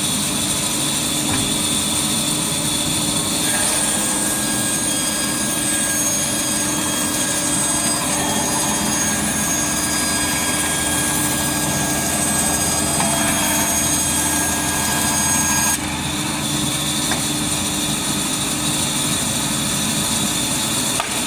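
Automatic band saw running, its blade cutting through a wood core blank fed by the conveyor: a steady machine noise with high whining tones. The whine joins about three and a half seconds in and cuts off sharply about sixteen seconds in, where the sound drops a little.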